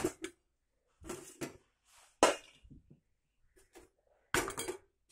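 A metal spoon scraping and clinking against a stainless steel bowl as grated raw mango is stirred together with spices and salt: a handful of separate knocks and scrapes, the loudest about two seconds in and again near the end.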